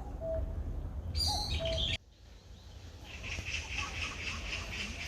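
Birds calling: a short low hooting call repeated several times, with a higher chirp among them, over a low rumble. About two seconds in the sound cuts off suddenly, and a fast, high, pulsing chirping trill follows.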